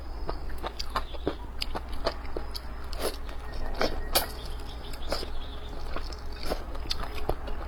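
A person eating close to the microphone: irregular wet chewing, biting and lip smacks, many short clicks a second, over a steady low hum.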